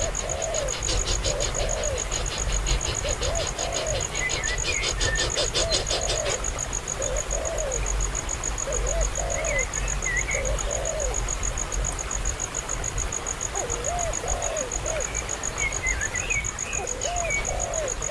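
A bird calling over and over with short, low, arched calls about once a second, with a few higher chirps now and then. Under it runs a steady high pulsing insect trill, which thins out about six seconds in.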